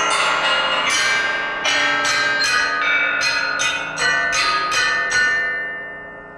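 Bell-like metal percussion struck in a run of ringing strokes, about two or three a second, with the pitch changing from stroke to stroke, the last one dying away near the end.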